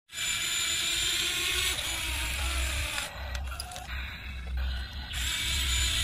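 Small electric motor and plastic gearbox of a toy RC vehicle running steadily, with a brief change in tone about three seconds in.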